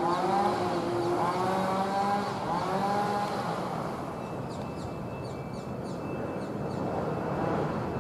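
Boeing 787-9 jet engines at takeoff thrust: a steady roar carrying engine tones that bend in pitch in the first few seconds as the airliner lifts off and climbs away. Short high chirps sound about halfway through.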